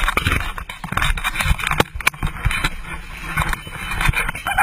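Commotion inside the cabin of a small plane that has just ditched in the sea: water rushing and splashing, with frequent knocks and clatter and some faint voices.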